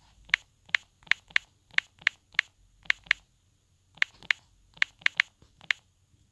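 Sharp light clicks in quick irregular runs, about fifteen in all with short pauses between the runs, as of typing a search.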